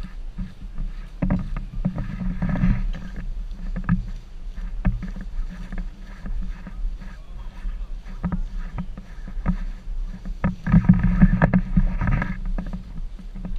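Handling noise from a GoPro on a selfie stick carried by someone walking: irregular rumbling and short knocks from the pole and the rustling inflatable costume, over a steady low hum. It grows louder and busier about eleven seconds in.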